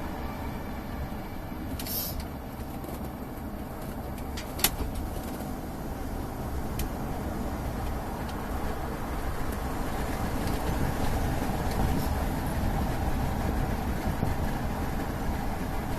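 Steady low rumble of a running vehicle, with a single sharp click about four and a half seconds in.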